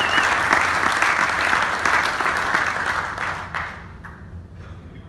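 Audience applauding, the clapping dying away about three-quarters of the way through.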